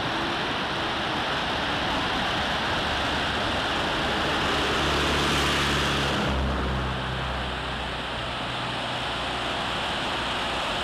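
Steady rushing hiss of a waterfall pouring over rocks. A low steady hum joins underneath about halfway, and the hiss softens slightly a little after that.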